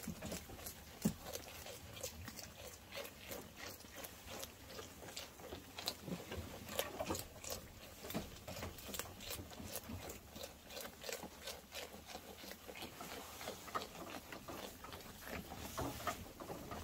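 Sheep tearing and chewing fresh green grass: a steady, irregular run of short crisp crunches and snaps, several a second.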